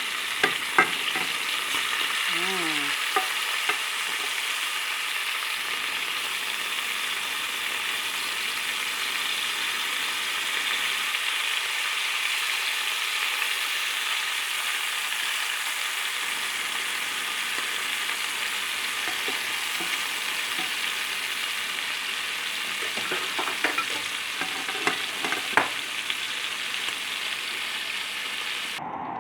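Pork chops frying in a little hot oil in a pan, a steady sizzling hiss as the second side browns. A few sharp clicks come near the start and again near the end.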